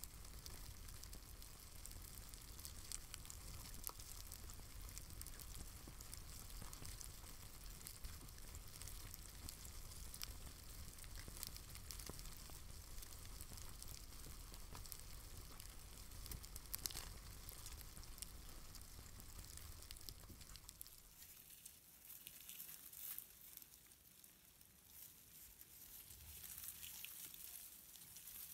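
Faint, dense crackling rustle of many cockroaches crawling over bark and wood, with a low hum underneath that stops about twenty seconds in.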